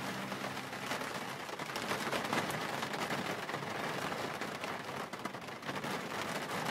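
Rain pattering on a moving car's windscreen, many small drop impacts over a steady rush of tyre and road noise on wet tarmac.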